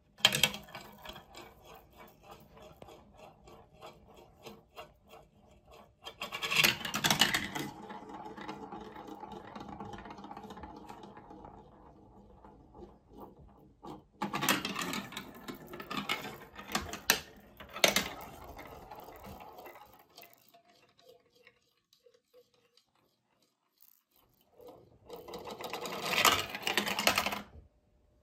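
A plastic ball rolling and clattering down a plastic block-built marble run: a running rumble with many small clicks as it goes through the chutes, broken by three louder rattling spells as it drops down stair-step sections and swirls in the funnels. A nearly silent stretch falls about three quarters of the way through, and it ends with the ball landing in the catcher cup.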